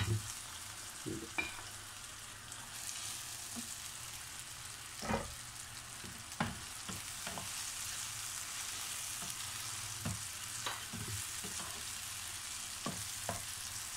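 Bitter gourd and onion-tomato masala sizzling steadily in a non-stick wok while being stirred with a wooden spatula, with occasional knocks and scrapes of the spatula against the pan.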